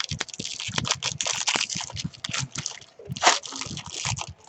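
Trading card pack wrapper crinkling and tearing, with quick crackles and clicks as the pack is ripped open and the cards handled; the loudest crackle comes about three seconds in.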